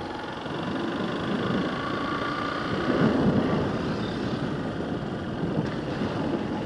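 Motorcycle engine running under way, with wind rushing over the handlebar-mounted camera's microphone; it grows a little louder about three seconds in.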